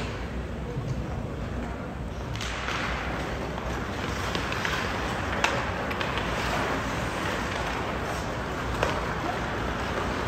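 Ice hockey play in an arena: skate blades scraping the ice, getting louder about two seconds in, with a few sharp clacks of sticks and puck over a steady low rink rumble.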